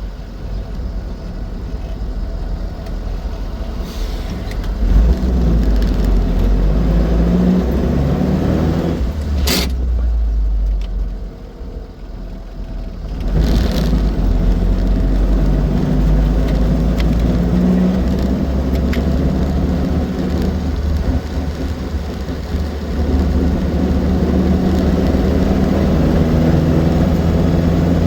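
Austin Seven Ruby's small four-cylinder side-valve engine running on the road, its pitch shifting up and down with speed. A sharp click comes about ten seconds in, then the engine goes quieter for a couple of seconds before picking up again.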